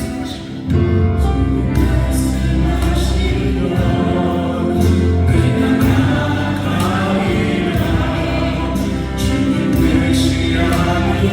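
Music with a choir singing over a steady bass accompaniment, in a gospel style.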